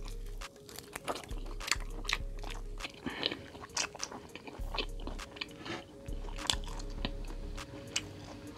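A person chewing and biting a sauced chicken wing close to a clip-on microphone: wet mouth clicks and small crunches coming quickly and irregularly.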